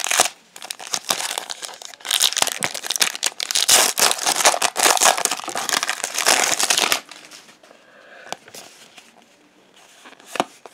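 A foil trading-card pack being torn open and crinkled as the cards are pulled out. The crinkling is loud from about two seconds in until about seven seconds, then gives way to quieter handling of the cards, with a single sharp tap near the end.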